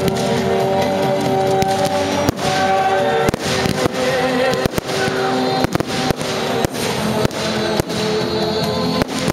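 Aerial fireworks shells launching and bursting in an irregular run of sharp bangs, one or two a second, over music with sustained tones.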